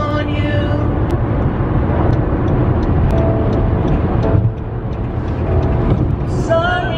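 Steady road noise inside a moving car, a low rumble throughout. Faint music drifts in and out, and a song with singing comes back clearly near the end.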